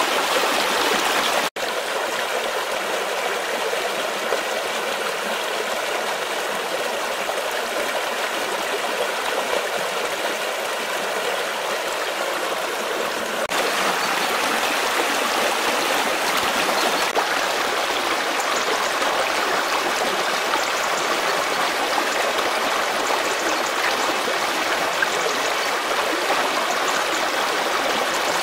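Rushing, gurgling water of a karst stream in spring flood, running fast over stones. There is a momentary break about a second and a half in, and the rush gets louder from about halfway through.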